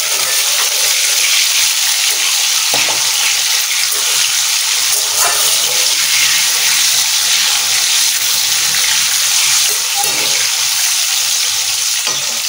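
Peeled boiled eggs frying in hot oil in an aluminium wok: a loud, steady sizzle, with a metal spatula now and then knocking and scraping against the pan as the eggs are turned to brown.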